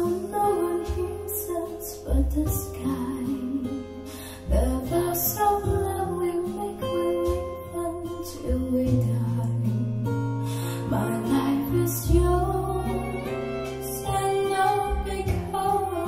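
A pop song with singing and guitar, played back through a pair of JBL Studio 530 bookshelf speakers and picked up in the room.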